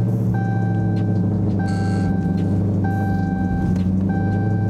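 Dodge Charger engine idling steadily just after a push-button start, with a dashboard warning chime repeating about every 1.2 seconds, four times.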